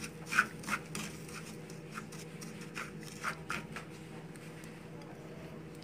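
Wooden spatula scraping and stirring dry, granular brown sugar in a small pan as it heats toward caramel: a series of short scrapes through the first three and a half seconds, then only a faint steady hum.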